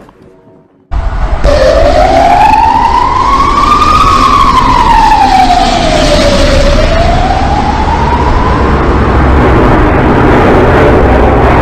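A loud, noisy rush cuts in about a second in. Over it a single wailing tone slowly rises, falls and rises again, like a siren, then fades into the noise: one of the 'strange sounds in the sky' recordings.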